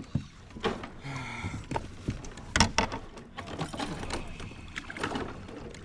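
Irregular knocks, clicks and rattles of gear being handled on a kayak, the sharpest knock about two and a half seconds in.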